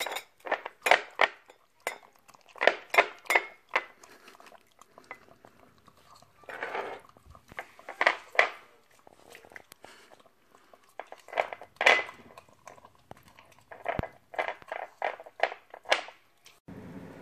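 Small glass tumblers clinking and knocking on a tile floor as a Chihuahua and a Cornish Rex cat lick food out of them, in quick irregular runs of clicks and laps.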